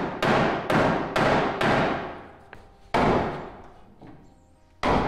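Hammer blows on the sheet metal of a pickup truck's bed while a bent corner is straightened: four strikes about half a second apart, then one a little after the middle and one near the end, each ringing out afterwards.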